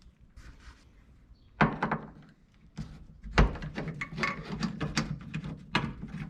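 Metal knocks and clinks as the loosened door latch of a 1948 Chevy pickup is worked out of the door: a sharp knock about a second and a half in, a louder thunk near the middle, then a run of small rattling clicks.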